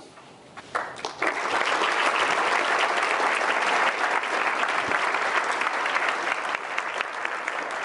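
Audience applauding, a dense steady clapping that starts about a second in.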